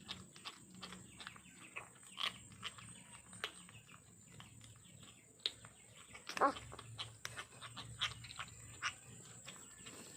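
Kittens eating: a dense, irregular run of small wet chewing and smacking clicks, with one louder short sound about six and a half seconds in.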